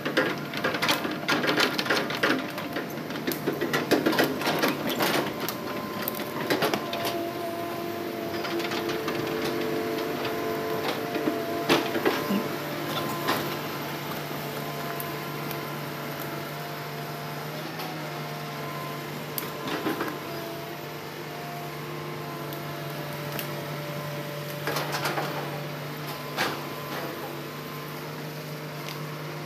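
Hitachi hydraulic excavator running, with a dense clatter of knocks and clanks from the bucket and tracks over the first several seconds. After that it settles into a steady engine drone with only occasional single clanks as it tracks away.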